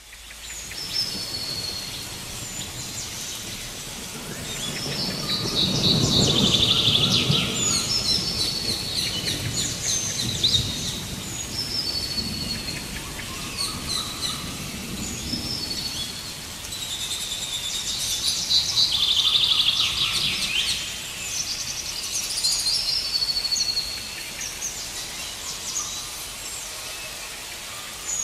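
Rainforest ambience: many birds calling and chirping in overlapping short, high phrases over a steady hiss. A low rumble swells about six seconds in and again around twenty seconds.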